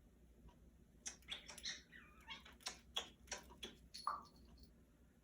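Congo African grey parrot vocalizing: a quick run of clicks, squeaks and short pitched calls starting about a second in, with a falling, meow-like call near the end.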